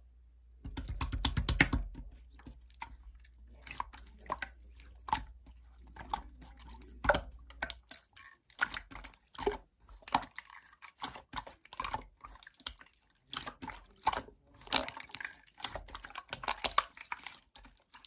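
Slime being squished and poked by hand, making quick irregular wet clicks, crackles and small pops.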